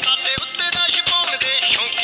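A Punjabi song playing, with a steady drum beat and a melody line.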